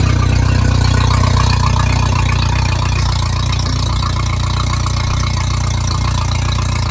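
Mercury 60 hp four-stroke outboard, a 1-liter four-cylinder, idling steadily while a garden hose feeds it fresh water for a flush, with the cooling water splashing out of the lower unit.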